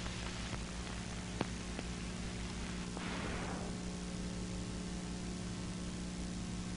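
Steady hiss and electrical hum from an old lecture-film soundtrack, with no speech. There is one faint click about a second and a half in and a brief soft swell of noise around three seconds.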